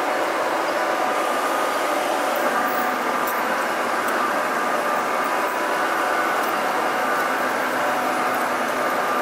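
1:22.5-scale model trains running on the layout, with a steady rolling rumble of wheels on track and a faint motor whine.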